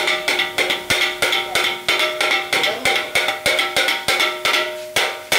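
Metal blades chopping kothu parotta on a cast-iron griddle: fast, rhythmic clanging of about four to five strikes a second, each strike leaving a metallic ring.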